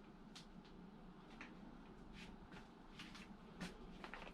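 Near silence with a few faint, scattered clicks and rustles of small parts being handled.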